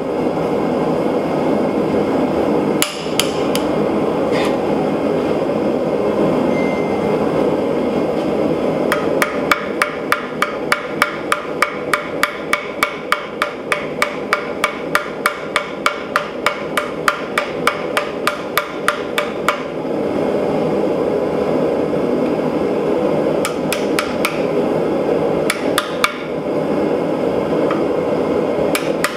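Ball-peen hammer striking red-hot steel on the anvil block: a few single blows, then a fast even run of about three blows a second for some ten seconds, then a few more blows near the end. A steady rushing noise from the running forge lies underneath.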